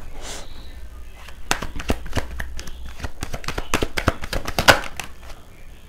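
A deck of tarot cards being shuffled by hand: a quick, irregular run of crisp card snaps and flicks, starting about a second and a half in, after a short sliding hiss.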